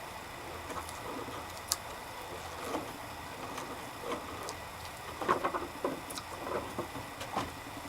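Scattered light knocks and clicks of workbench clamp parts and wood being handled: a sharp click about two seconds in, then a cluster of knocks in the second half.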